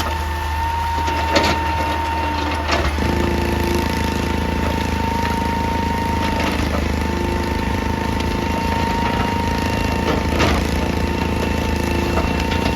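Excavator's diesel engine running steadily under a constant high whine, with a few sharp knocks. About three seconds in, the engine sound grows fuller as it takes more load.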